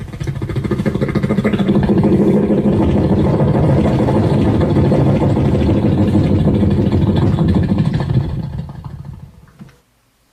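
Human voice imitating a running engine: a loud, rapid mouth-made pulsing that builds up over the first couple of seconds, holds steady, then fades out near the end.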